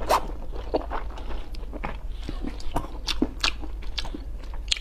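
Close-miked eating sounds: irregular small bites and mouth clicks, over a low steady hum.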